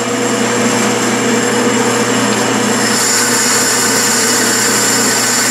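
Clausing metal lathe running steadily while its tool cuts a small chamfer on a cast iron backing plate. A high whine grows louder about three seconds in.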